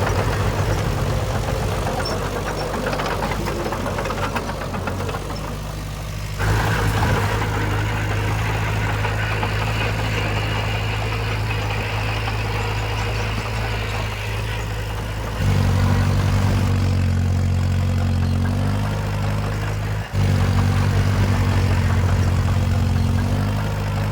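Diesel engine of heavy earthmoving equipment running steadily. Its note changes abruptly about a third of the way in, again past halfway, and once more near the end.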